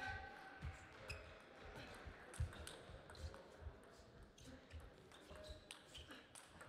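Table tennis rally: the celluloid-type plastic ball clicking off rackets and table at an irregular pace, with one much louder hit about two and a half seconds in.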